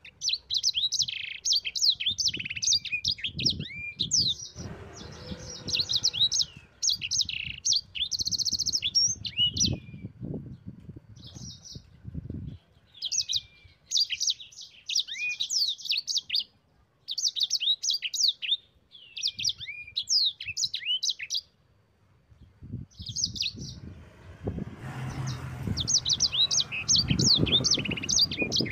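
A sanger songbird singing in rapid rolling phrases of high, quick chirps and trills, each run lasting a few seconds with brief pauses between. Low thumps and rumbles sound under parts of the song.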